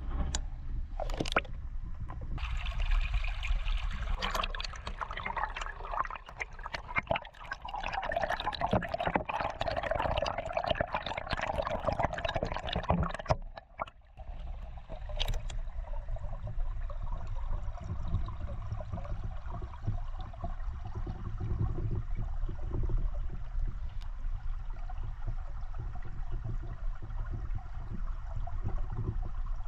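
Mountain stream water trickling and gurgling, louder and busier for about ten seconds near the start, then settling to a steadier, quieter flow, with a low rumble underneath.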